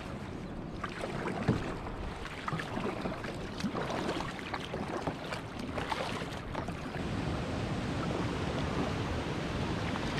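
Sea water splashing and sloshing around a kayak on choppy water, with wind buffeting the microphone. The splashes are busiest for the first several seconds, then settle into a steadier wash.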